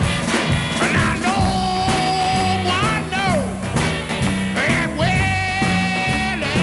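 A 1962 blues record playing, with a repeating bass line under long held high notes that bend downward in pitch.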